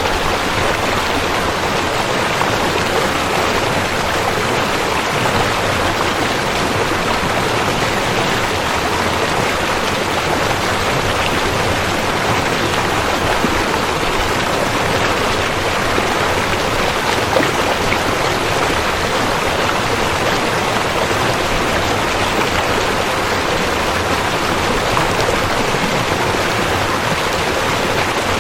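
River water flowing in a steady, even rush with no break or change.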